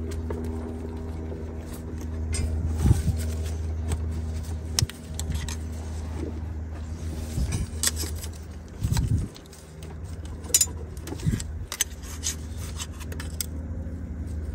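Scattered clicks and scrapes of a plastic PCV hose union and oil breather tube being worked into place by hand on a VW 1.8T engine, over a steady low mechanical hum that fades briefly about nine seconds in.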